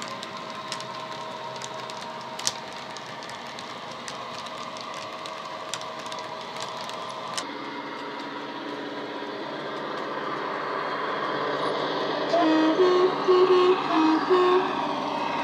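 Model freight wagons rolling on track, their wheels clicking over the rail joints. About halfway through, a Class 57 diesel's engine sound from a model sound decoder and speaker starts, steady and slowly growing louder. Near the end the decoder's two-tone Class 47/57 horn sounds in a quick run of short blasts.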